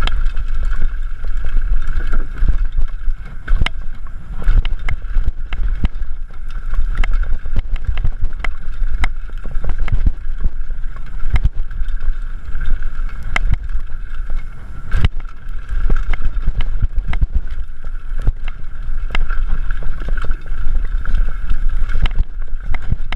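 Mountain bike descending a rough dirt trail at speed: wind buffeting the camera's microphone, with frequent irregular rattles and knocks from the bike over bumps and roots, and a steady high buzz throughout.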